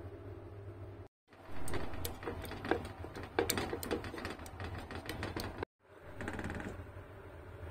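A masher crushing soft, fermenting persimmons in a glass jar: an irregular run of sharp knocks of the masher against the glass with wet squishing of the fruit, mashed to push along fermentation for persimmon vinegar.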